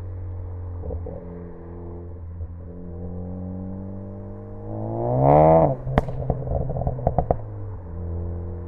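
Ford Focus ST engine idling, then one quick throttle blip about five seconds in. As the revs drop, the exhaust gives a sharp pop and then a quick cluster of crackles: the overrun pops and crackles of a tune with aggressive crackle settings. It then settles back to idle.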